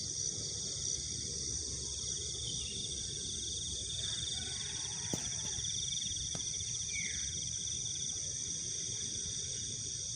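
Insect chorus trilling steadily at a high pitch, with a couple of faint clicks midway.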